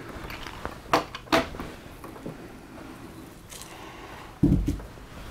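Handling of a 3D-printed clock's pendulum as it is lifted off the clock: a few sharp plastic clicks and knocks, then a heavier low thump about four and a half seconds in.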